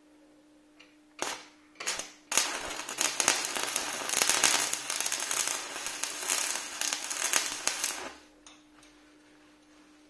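Stick-welding arc from a homemade welder built from a refrigerator compressor's stator coil: two brief arc strikes just over a second in, then the electrode arc crackles steadily for about six seconds and stops abruptly.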